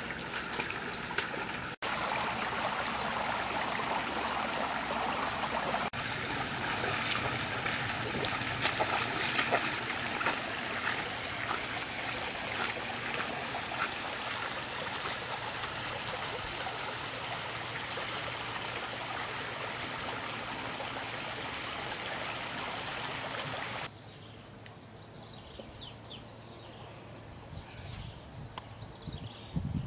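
Shallow stream water splashing and rushing as a person wades through it, a steady noisy wash with many small splashes. It cuts off suddenly about three-quarters of the way through, leaving a quieter background with faint high chirps.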